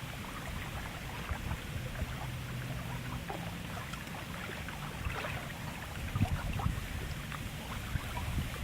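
Wind rumbling on the microphone, with scattered light crackling throughout.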